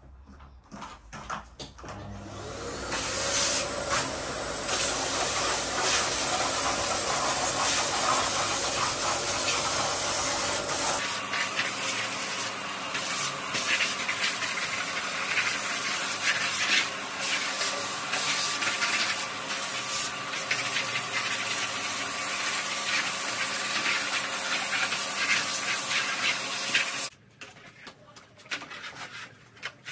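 Red canister vacuum cleaner starting about two seconds in after some handling clicks, then running with a steady rush of air and a motor hum as it sucks over wooden deck tiles. The sound changes about halfway through and falls away near the end, leaving a few clicks.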